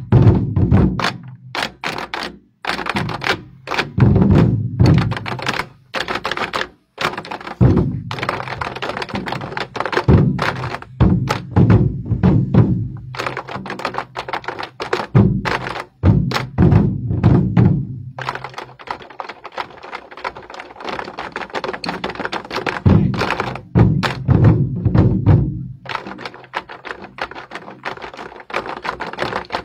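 Twenty-Four Festive Drums ensemble: many large barrel drums beaten with sticks in rapid, dense strokes and loud accented surges. The strokes thin out to a lighter, sparser passage for a few seconds in the middle, then the full drumming builds again.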